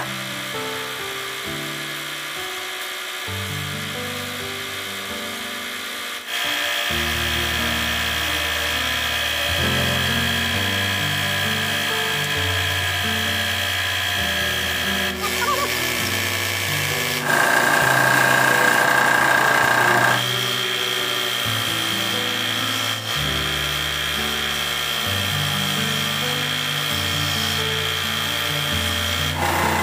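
Background music with a changing bass line over a wood lathe turning a small wooden bowl. The lathe gives a steady high whine as the gouge cuts, and the whine shifts abruptly several times at the cuts between shots.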